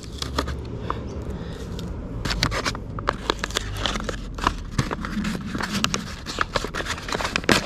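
Packaging being handled and picked at by hand to get it open: a busy run of small scratches, crinkles and clicks.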